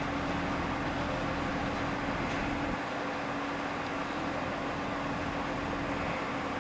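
Steady mechanical hum over a noisy background, with a low rumble that drops away about three seconds in.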